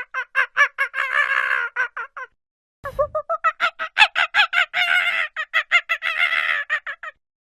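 Monkey calling in rapid runs of short, pitched hoots that build into a drawn-out screech, twice over, with a brief silence between the two runs about two and a half seconds in.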